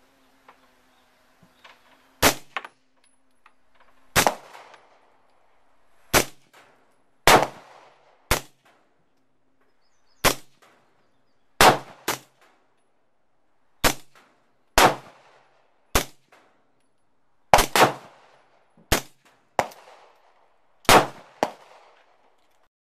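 Suppressed 9mm AR-pattern carbine (Rock River Arms LAR9 with a 4.5-inch barrel and Gemtech Trinity silencer) firing about a dozen single shots, spaced unevenly a second or two apart. Several shots are followed within half a second by a fainter second report.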